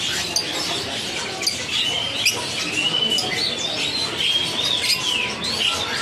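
Many caged songbirds chirping at once: short high chirps and quick rising and falling whistles that overlap throughout, over a steady background hiss.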